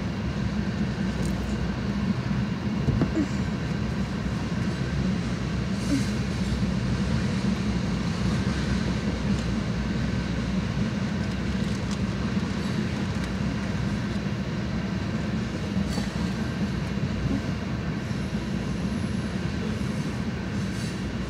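Freight train tank cars rolling steadily past a grade crossing: a continuous rumble of steel wheels on the rails, with a few faint clicks.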